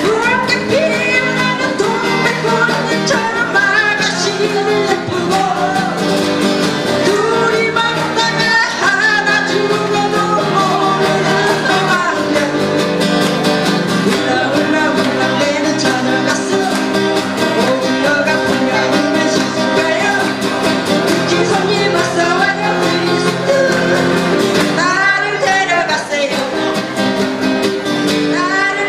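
Live acoustic guitars strummed together while voices sing a Korean trot medley through microphones and a small amplifier.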